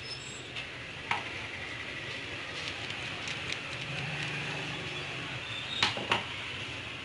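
Sharp plastic clicks and small knocks from a toner cartridge being handled and pried at with a screwdriver, over a steady hiss. The loudest click comes about a second in, and two more come close together near the end.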